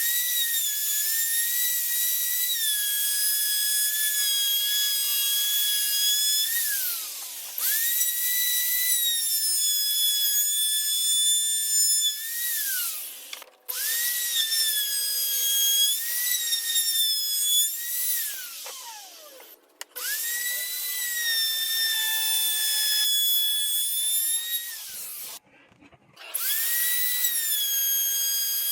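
A high-speed power tool motor working wood with a high whine. It is switched on five times; each run spins up quickly, dips slightly in pitch as it bites, and winds down with a falling whine when released.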